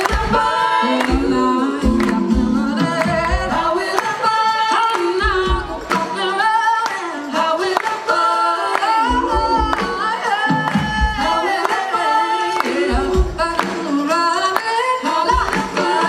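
Live band performance: a woman singing lead over drums, upright bass and electric guitar, with a steady beat.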